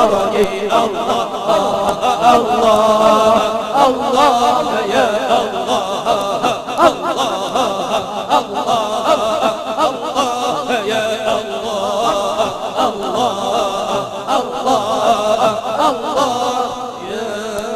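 Islamic devotional nasyid chanted by a man's voice through a microphone in one long, wavering, ornamented melodic line, over a steady low hum.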